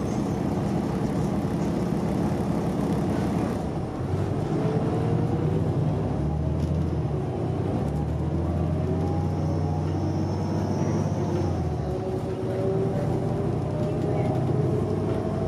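Cummins ISM inline-six diesel and Voith automatic transmission of a 2006 New Flyer D40LFR transit bus, heard from inside the passenger cabin while under way. A whine rises slowly in pitch as the bus gathers speed, and the low engine note changes about four and twelve seconds in.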